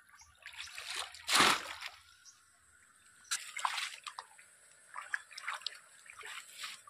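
A person wading through knee-deep muddy water and groping in it with the hands. There is one loud splash about a second and a half in, then a few smaller, irregular sloshes and drips.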